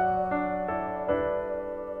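Background music: a slow, soft melody on a piano-like keyboard, a new note every third to half second.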